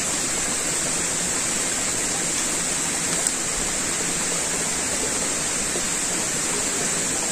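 Running water of a rocky stream and waterfall: a steady, even rush of water.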